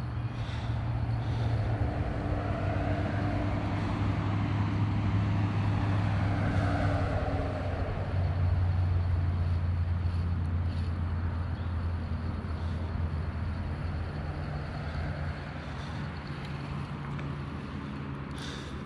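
An engine running, a steady low hum that swells over the first couple of seconds and then slowly fades, like a vehicle passing.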